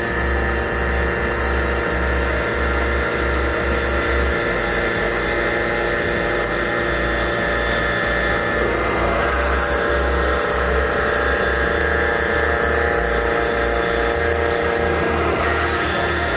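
Face milling cutter with indexable inserts taking a cut across a metal block on a milling machine. It makes a steady machining whine with several steady tones over a low rumble.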